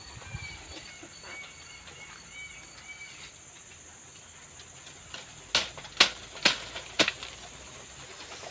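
Four sharp cracks about half a second apart, from a bamboo shoot being cut and broken out of a dense clump of dry bamboo. Faint bird chirps come before them.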